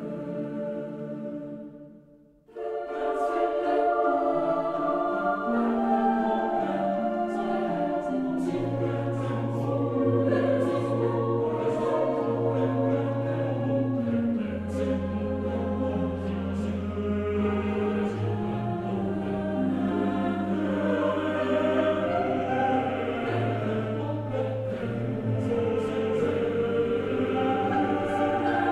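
Choral music: a choir singing over long, held low notes. It begins abruptly about two and a half seconds in, after an earlier piece fades out.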